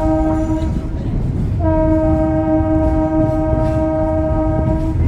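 Train horn sounding on the Skunk Train: one blast cuts off under a second in, then a long blast of about three and a half seconds, over a steady low rumble.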